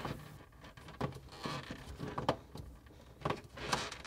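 Faint scattered clicks and scrapes of fingers working a black plastic waterline retaining clip on a refrigerator's triple water valve, ending with a louder sharp snap.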